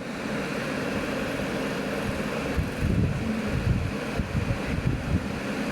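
Wind buffeting the microphone over a steady hiss, with irregular low rumbles from about halfway through.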